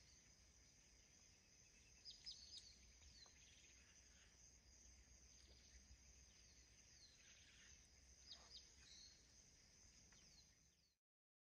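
Near silence: faint swamp-side ambience with a steady high insect drone and a few brief bird chirps about two seconds in and again near eight seconds, under a low rumble. The sound cuts off abruptly just before the end.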